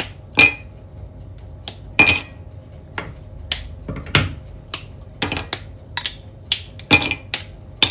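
A dark chocolate bar being snapped into squares by hand and the pieces dropped into an empty stainless steel saucepan: an irregular string of sharp cracks and clinks against the metal, a couple of them with a short ring from the pan.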